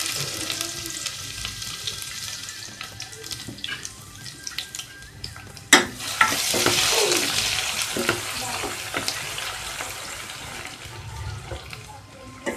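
Chopped ginger and garlic sizzling in hot oil in a steel pot, stirred with a plastic spatula. There is a sharp knock about six seconds in, after which the sizzle swells again and slowly dies down.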